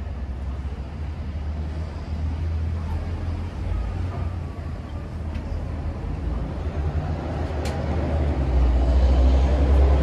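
Road traffic: a low rumble that swells louder near the end as a vehicle passes close.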